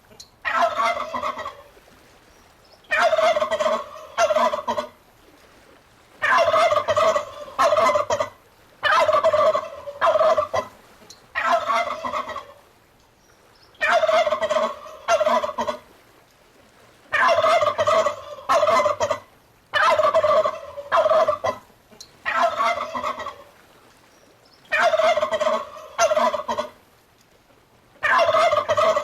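Turkey gobbling over and over, a loud rattling gobble of one to two seconds about every three seconds, with quiet gaps between calls.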